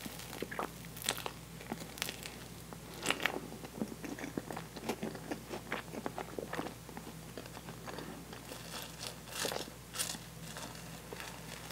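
Close-miked eating sounds of gooey toasted marshmallow: wet, sticky chewing and smacking with irregular sharp clicks, heaviest about three seconds in and again near the end, mixed with a wooden spoon scooping the soft marshmallow from a glass dish.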